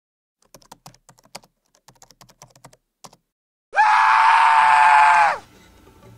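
Rapid, irregular clicking like typing on a computer keyboard for about three seconds, then a loud, high-pitched scream that swells in, holds for about a second and a half and drops off.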